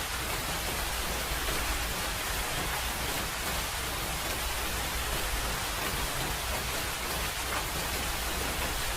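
Steady rain falling: an even, unbroken hiss with no distinct drops or thunder standing out.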